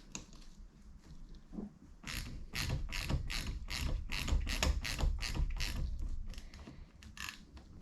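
Ratchet wrench clicking in quick repeated strokes, spinning a bar-end weight bolt into a motorcycle handlebar. The clicks start about two seconds in and thin out near the end.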